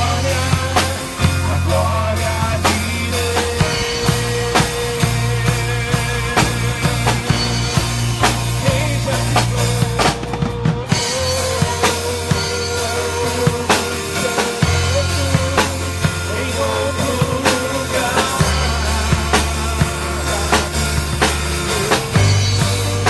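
Instrumental passage of gospel worship music: a drum kit keeps a steady beat over long held bass notes and a melodic line, with no singing.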